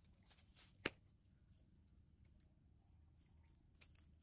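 Faint crackle of dry bamboo leaf litter, a few light ticks with one sharper snap about a second in, then near silence.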